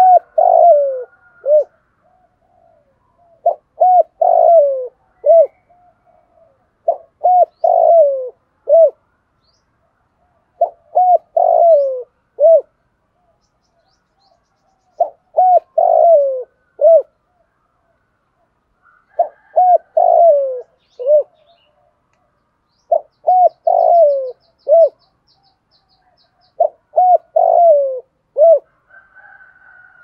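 Spotted dove cooing its territorial song: a phrase of three or four hoarse, low notes ending in a short, separate note, repeated about every four seconds. This is the call used from a caged decoy dove to draw in wild spotted doves.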